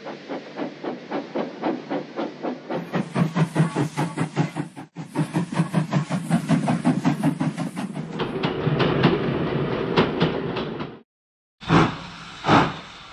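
Steam locomotive chuffing in an even rhythm, a few beats a second. After about eight seconds the chuffs blend into a steadier rush that cuts off suddenly, followed near the end by three loud, separate puffs.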